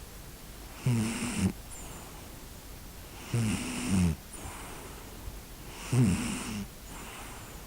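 A sleeping pet snoring: three snores about two and a half seconds apart, each a short, wavering low rattle with a hiss over it.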